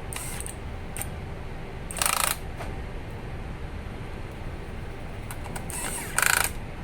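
Small screws being driven into a laptop's metal drive bracket with a screwdriver: two short, harsh scraping bursts about two and six seconds in, with a few light clicks, over a steady low hum.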